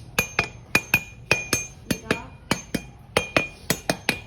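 A hard metal object struck again and again in quick groups of two or three sharp taps. Each tap rings briefly with the same bright note.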